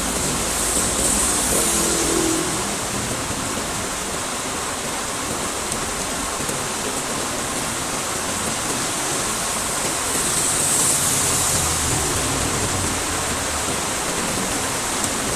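Heavy rain pouring steadily beside a road. The hiss swells twice, about a second in and again about ten seconds in, as traffic passes on the wet road.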